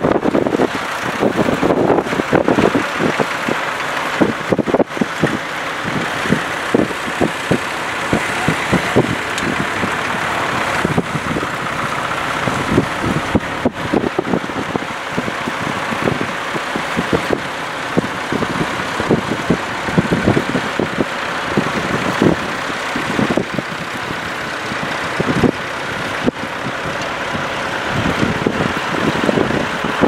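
Vintage farm tractor engines running as they pull ploughs, mixed with gusty wind buffeting the microphone.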